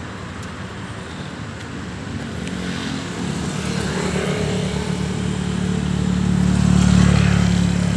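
A motorcycle approaching along the road and passing close by, its engine hum growing louder to a peak about seven seconds in, then starting to fade.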